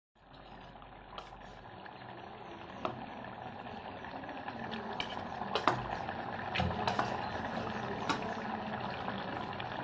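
Thick sardine curry bubbling at a boil in a clay pot, growing gradually louder, with scattered sharp pops and clicks.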